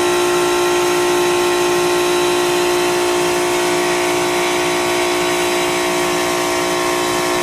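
Multistack modular water-cooled chiller running with its compressors on: a steady mechanical hum with several strong held tones.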